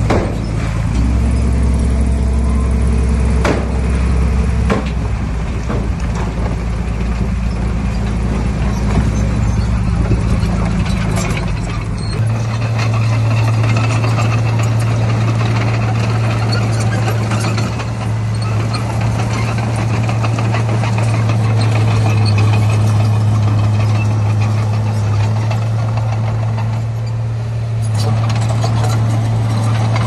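Diesel engines of heavy earthmoving machines, a dump truck and a Komatsu D31P bulldozer, running hard at work. There are a couple of sharp knocks in the first five seconds, and about twelve seconds in the engine note shifts to a steady drone.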